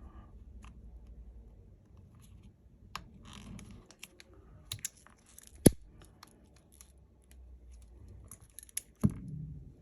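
Small clicks and light scraping from handling phone parts and repair tools on the bench, with a sharp tap about halfway through and another near the end.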